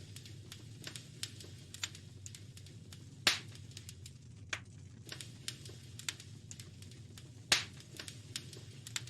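Wood fire crackling in a fireplace: irregular small snaps and pops, two louder pops about three seconds and seven and a half seconds in, over a steady low rumble.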